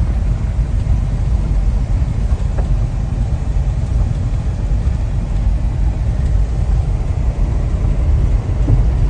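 Car being driven: a steady low rumble of engine and road noise heard from inside the cabin.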